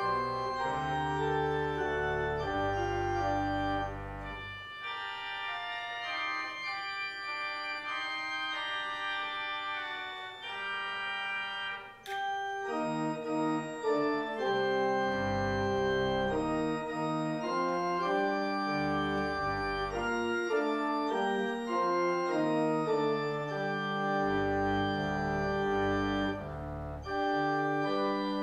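Church organ playing the postlude that closes a service: sustained chords under a moving melody. The deep bass notes drop out after a few seconds and come back in later.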